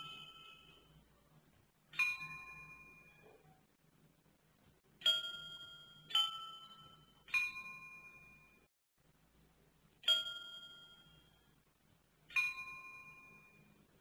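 Slow, sparse struck chime notes, six in all, each ringing out and fading over about a second, sounding two different pitches, over a faint steady low hum.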